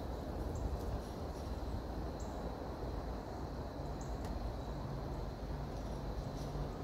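Steady low background rumble, with no distinct event standing out.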